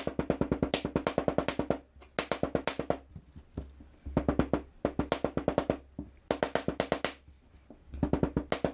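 Rapid hard tapping as Delft clay casting sand is rammed down in its mould frame around the ring pattern, to pack it firmly. The taps come about nine a second, in runs of a second or two with short pauses between.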